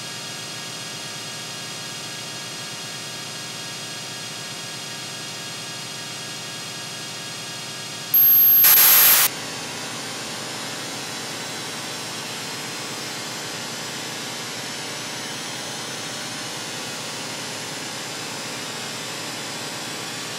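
Electronic noise drone: a steady hiss layered with many held tones. About eight seconds in, a loud burst of static lasts about a second, then a rougher hiss carries on.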